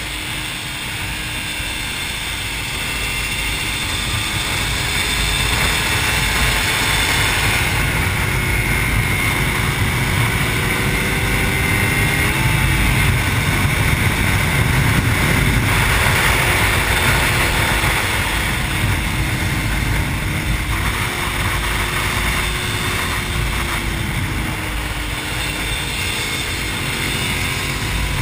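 Suzuki SV650's V-twin engine running hard at track speed, its pitch rising and falling through the corners with a couple of abrupt jumps, under heavy wind rush on the bike-mounted camera. It gets louder over the first dozen seconds and eases a little near the end.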